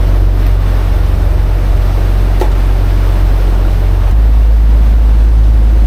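Fishing boat's engine running with a steady low rumble; about four seconds in, its note deepens and grows a little louder.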